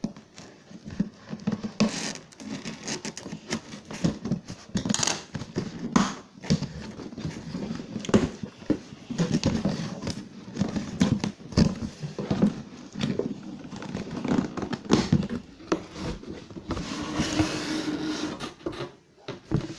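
Cardboard shipping box being opened by hand: irregular scratching, scraping and rustling of the cardboard and its packing, in uneven bursts.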